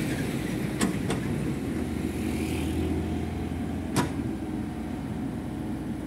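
Komatsu mini excavator's diesel engine running steadily while it digs, with a few sharp knocks: two close together about a second in and a louder one about four seconds in.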